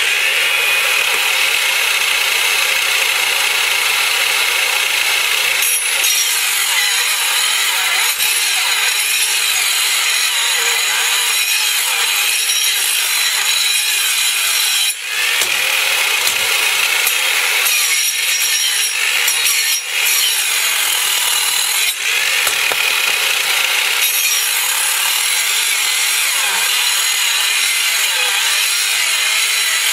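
Bosch handheld circular saw mounted upside down under a homemade steel saw bench, running and cutting into a thick, very hard log that is turned against the blade. The steady, loud cutting noise drops briefly a few times.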